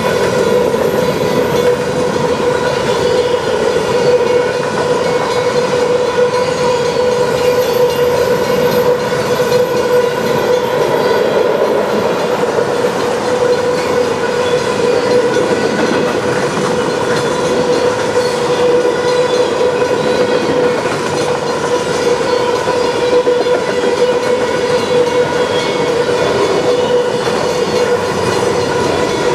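Covered hopper cars of a freight train rolling steadily past at close range: a continuous rumble of steel wheels on rail with clickety-clack over the joints. A steady ringing tone runs through it.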